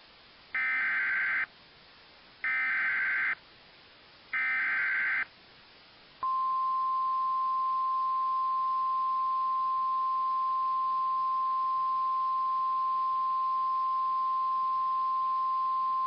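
Emergency Alert System SAME header data bursts, three buzzy bursts of about a second each with a second's gap between them, followed about six seconds in by NOAA Weather Radio's steady 1050 Hz warning alarm tone held for about ten seconds. Together they announce a new severe thunderstorm warning and would trigger alert-capable weather radios.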